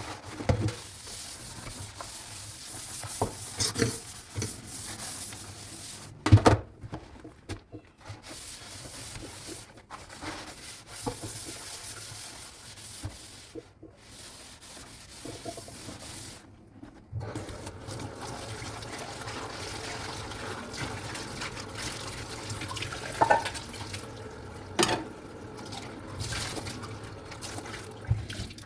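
Dishes being washed by hand in a kitchen sink: water splashing and running, with scrubbing and sharp clinks and knocks of dishes against each other and the sink. The water runs more steadily in the second half.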